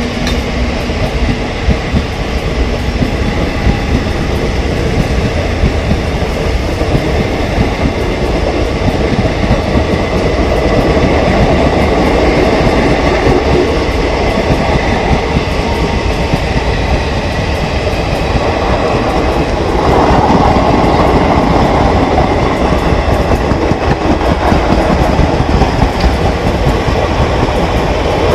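Passenger train coaches running past at speed, their wheels rumbling and clattering over the rails. The noise grows louder about twenty seconds in.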